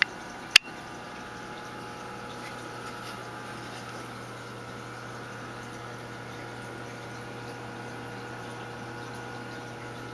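Aquarium filter running with a steady low hum and water trickling. A single sharp click about half a second in.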